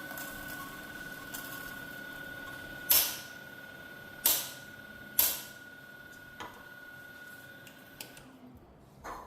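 Timemore Sculptor 078S electric coffee grinder running with a steady whine that stops about eight seconds in. Three loud sharp knocks come between about three and five seconds in, followed by a few lighter taps.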